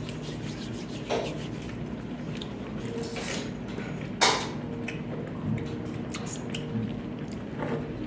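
A metal fork clinking and scraping against a bowl in short, scattered taps, with one louder clink about four seconds in, over a steady low hum.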